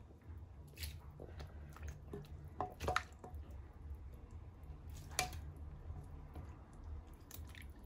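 Metal kitchen tongs lifting tender braised beef out of a pot of birria broth: wet squelching and broth dripping back into the pot, with a few short light clicks of the tongs.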